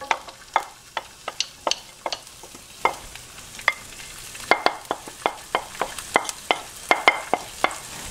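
Chopped onion, garlic and turmeric sizzling as they go into hot oil in a non-stick frying pan, with many sharp clicks and taps as the food is tipped and scraped off a glass dish into the pan. The sizzle grows a little from about halfway through.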